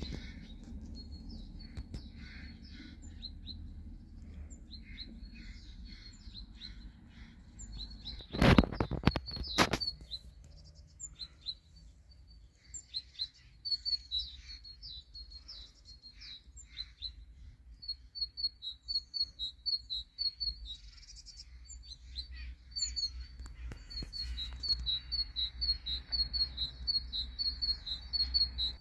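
Small birds chirping, a string of short high chirps repeated again and again and coming thicker in the second half. A few loud sharp knocks about eight and a half seconds in, over a steady low rumble.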